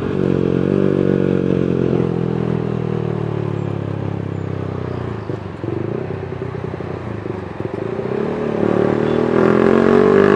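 Honda New CB150R's single-cylinder engine running through a 3Tech Racing Evolution Spartan GP aftermarket exhaust in its racing mode, noisy, while the bike is ridden. The engine note sinks slowly as the bike eases off, then rises again near the end as it accelerates.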